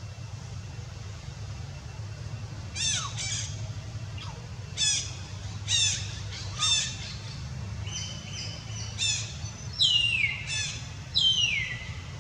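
A series of about ten shrill animal squawks, each sliding down in pitch, beginning about three seconds in. The last two are longer and louder, falling further. A low steady hum runs underneath.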